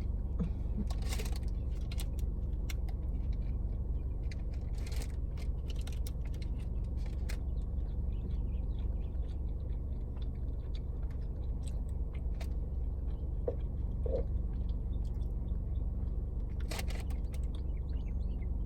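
Close-up chewing and crunching of an oatmeal chocolate chip cookie: many small, irregular mouth clicks and crunches. A steady low rumble runs underneath, with faint bird calls.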